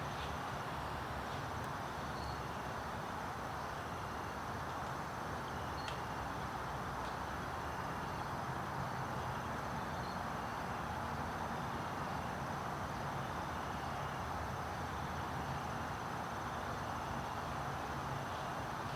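Steady background hiss with faint, short high chirps repeating every couple of seconds, like insects calling.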